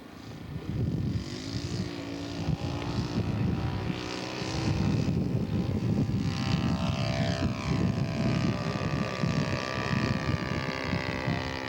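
Radio-controlled scale model airplane engine and propeller running, its pitch slowly rising over the second half as the throttle is opened, with wind buffeting the microphone.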